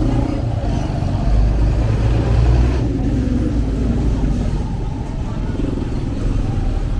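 Street traffic: a motor vehicle's engine running close by over a steady low rumble.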